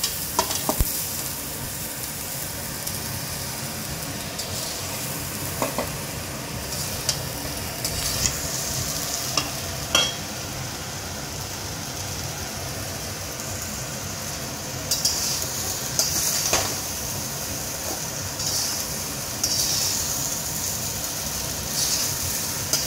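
Mixed vegetables and freshly added cooked rice sizzling in a large metal kadai while a spatula stirs and turns them. Scattered sharp knocks and scrapes of the spatula on the pan come through, and the hiss of the frying grows stronger in the last third.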